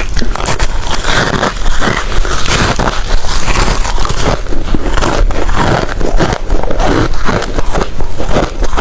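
Ice being bitten and chewed: a loud, dense, continuous run of crunches.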